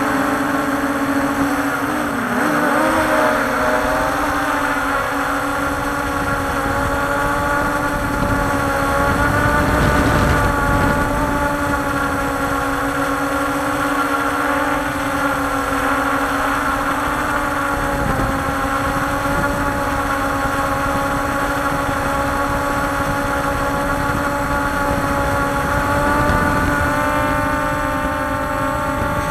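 Walkera Scout X4 quadcopter's brushless motors and propellers whining steadily in flight, heard from its onboard camera, with wind rumbling on the microphone. The pitch wavers and dips briefly about two to three seconds in, then holds steady.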